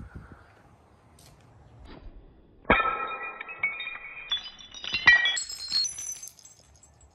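Glassy, chime-like ringing that starts suddenly a little under three seconds in, its tones stepping up in pitch about four times before dying away near the end.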